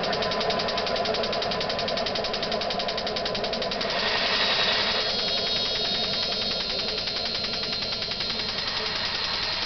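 J44 turbojet on a test cart during its start, running with a rapid, even clatter and steady tones. A higher whine joins about four seconds in.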